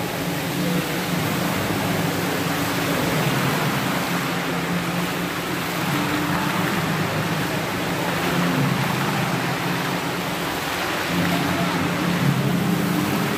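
Indoor fountain's water jet falling and splashing into its pool: a steady rush of water.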